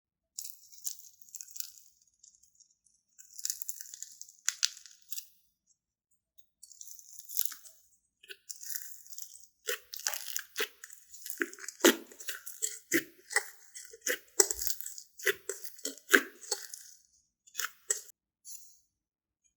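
Foam-ball slime mixed with clay being squeezed and poked by hand: irregular sticky crackles and clicks. They come sparsely at first, then grow denser and louder with deeper squishy pops about halfway through.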